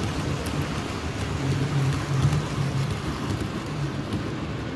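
Model railway train running along the layout's track: a steady rumble with light clicks scattered through it.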